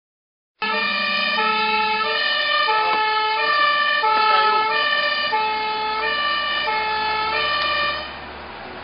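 Fire engine's two-tone siren, heard from inside the cab, switching between a high and a low note about every half second over the truck's engine. It stops near the end, leaving the engine and road noise.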